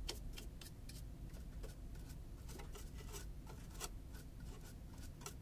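Small stiff-bristled lint brush scrubbing dust out of the opened head of a sewing machine: quick, irregular scratchy strokes, several a second.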